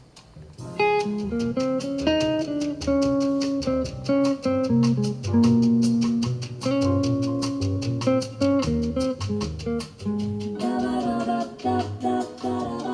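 Recorded music played back through home-built coaxial bookshelf speakers: an instrumental intro of plucked guitar over a bass line, starting about a second in, with bright treble.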